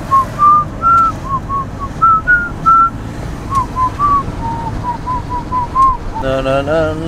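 Someone whistling a tune: a quick string of clear notes rising and falling in pitch, over a steady low rumble. Near the end, music with held notes comes in.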